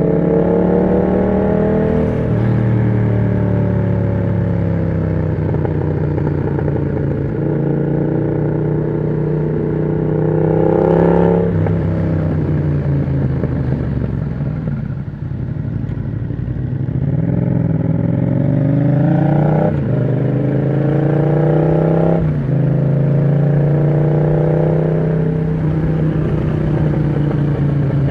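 Yamaha MT-07 parallel-twin engine through an aftermarket exhaust with the dB killer removed, pulling through the gears. The pitch climbs and drops sharply at each upshift, about four times. Around the middle the revs fall away for a few seconds as the bike slows, then it pulls again.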